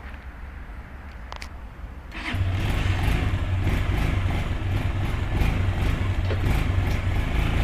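Stels Delta 200 motorcycle engine starting about two seconds in, then running steadily at idle.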